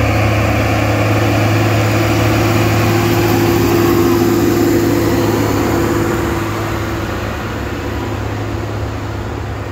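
Farm tractor engine running as the tractor drives past towing a wagon, growing louder to a peak about four seconds in and fading after.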